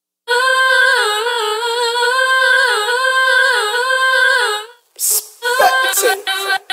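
Music intro: a high, wordless female vocal melody holding long notes and stepping between them. About four and a half seconds in it breaks off for a whoosh, followed by short chopped vocal snippets that glide in pitch.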